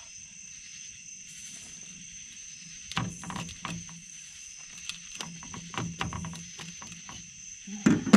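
Scattered knocks and clatter of handling on a fishing boat: a few about three seconds in, a cluster around five to six seconds, and the loudest near the end. Under them runs a steady high-pitched drone of night insects.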